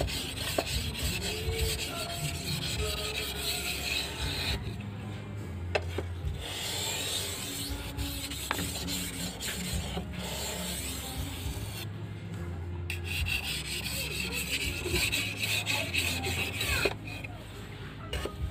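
A88 steel golok (machete) blade being scraped back and forth over a whetstone in steady sharpening strokes. The strokes pause briefly about five, twelve and seventeen seconds in.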